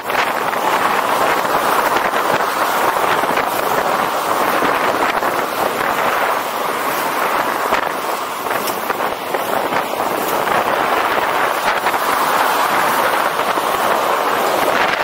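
Steady rushing noise of fast inline skating at about 37 km/h: wind buffeting the camera microphone over the roll of the skate wheels on asphalt.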